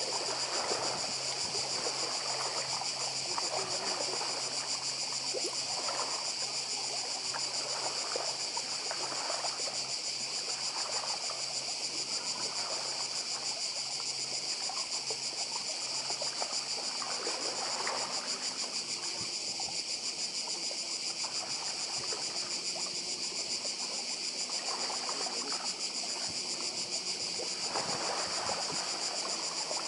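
Cicadas chorusing in a continuous high-pitched drone, over small waves lapping and washing against a rocky pebble shore.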